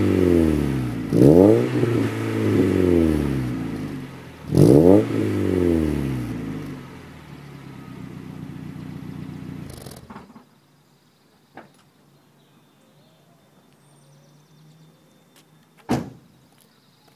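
1992 Mazda Miata's 1.6-litre four-cylinder running through a Magnaflow high-flow catalytic converter and exhaust, blipped twice from idle, each rev rising and falling back. It then idles and is switched off about ten seconds in. One sharp knock near the end.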